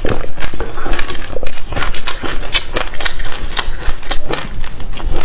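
Passion fruit being eaten close to the microphone: a dense run of irregular crunchy clicks and crackles as the seedy pulp is chewed.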